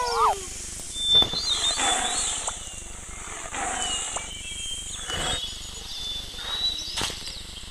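A wild animal giving several short, rough calls, one after another, with high bird chirps in the background.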